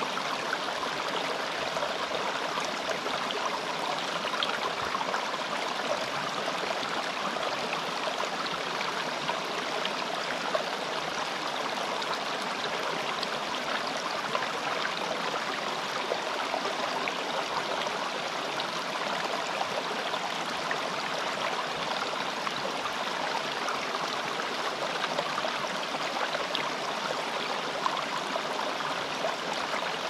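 A small rocky stream running over stones and low rock steps: a steady, even rush of water.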